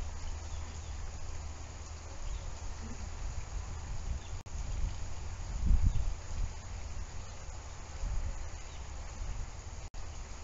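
Steady outdoor background noise over a low rumble, with a brief stronger low thud about six seconds in.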